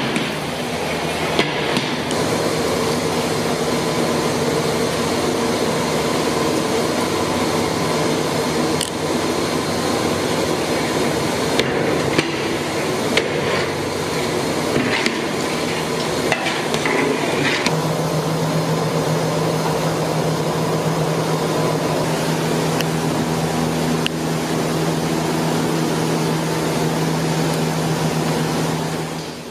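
Metal ladle scraping and knocking against a large aluminium cooking pot as bread pieces are stirred in hot milk, over a steady rumbling hiss and hum.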